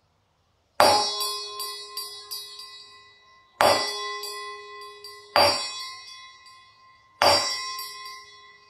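A steel tumbler struck softly with a steel spoon, four times at intervals of about two seconds. Each tap rings out with a few clear, bell-like tones that fade away. After the first tap there are several light ticks as the hanging ball bounces off the vibrating rim.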